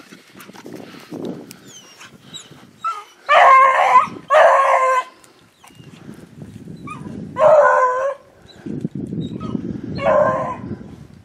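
Beagle baying on a rabbit's trail in the snow: four long bays, two close together about three seconds in, then one near the middle and one near the end, with a few short yips between.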